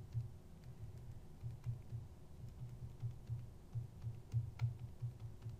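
Keys of a TI-83 Plus graphing calculator being pressed in a quick, irregular run of soft clicks and dull taps as a calculation is keyed in.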